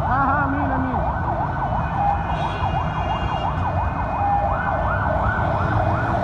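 Emergency-vehicle sirens: several yelp sirens sweeping rapidly up and down at once, and from about four and a half seconds in a siren of quicker rising whoops takes over. Two brief steady beeps come about two and four seconds in, over a low street rumble.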